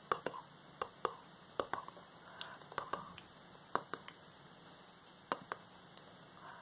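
A woman whispering close to the microphone, her words broken up by irregular sharp clicks, many of them in quick pairs.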